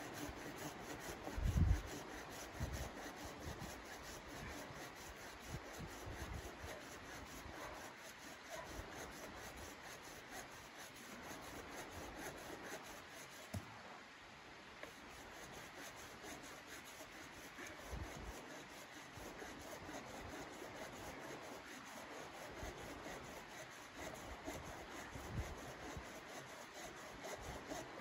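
A hand pruning saw cutting through a log with steady back-and-forth rasping strokes. A low thump comes about a second and a half in.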